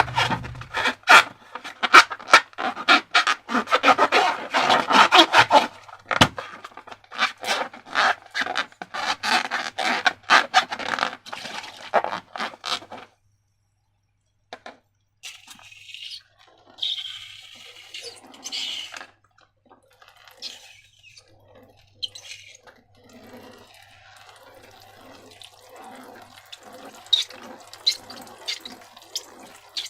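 Wet, sticky slime being handled, with dense crackling and squelching for the first dozen seconds. After a short pause come quieter, softer squelches and pouring sounds.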